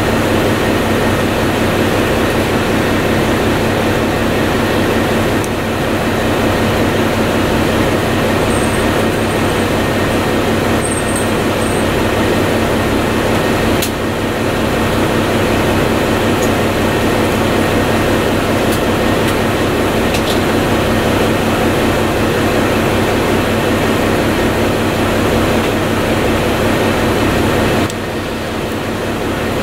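Cabin running sound of a 1998 Mitsubishi Fuso Aero Midi MK (KC-MK219J) diesel city bus under way: a steady engine hum with road noise, with a brief dip in level near the end.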